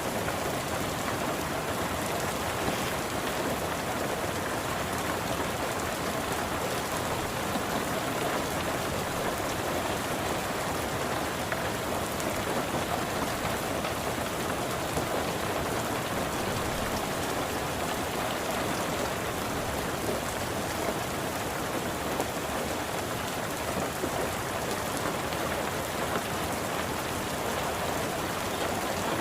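Steady rain falling, an even hiss of drops that keeps the same level without breaks.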